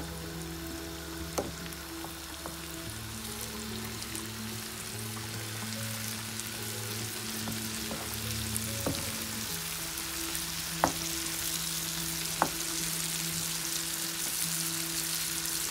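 Sliced button mushrooms sizzling steadily in oil in a frying pan over high heat, turned up so the water the mushrooms give off cooks away. A few sharp clicks from the wooden spatula against the pan.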